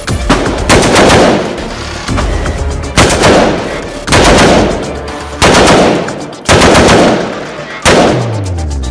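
A gun firing at an indoor range: six loud rounds of fire, a second or more apart, each ringing on in the concrete lane. A falling tone comes in near the end.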